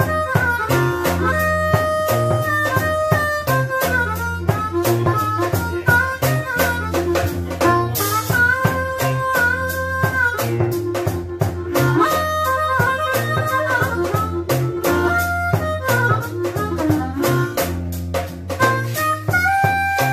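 Live blues band: a harmonica cupped against a vocal microphone plays amplified, held notes with short slides between them. A drum beat and a steady bass line run underneath.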